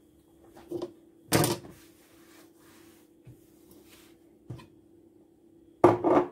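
A handful of sharp knocks and clatters from a knife and potatoes being handled against a kitchen worktop during peeling, the loudest about a second and a half in and a quick double knock near the end, over a faint steady hum.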